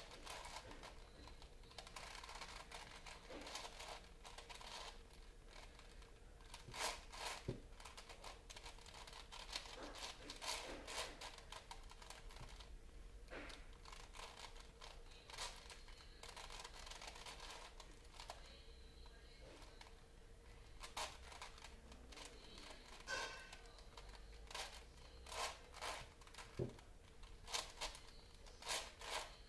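Plastic Rubik's cube being twisted by hand: runs of quick clicks and rasps as its layers turn, with short pauses between runs.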